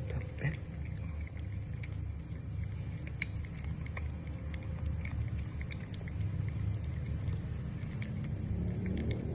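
A cat licking paste from a squeeze-tube treat: small, irregular wet tongue clicks and smacks, several a second, over a steady low rumble.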